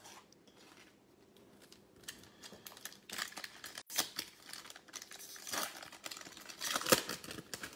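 Foil wrapper of a football trading-card pack crinkling and tearing as it is opened by hand. Quiet for about the first two seconds, then a run of crackles, loudest near the end.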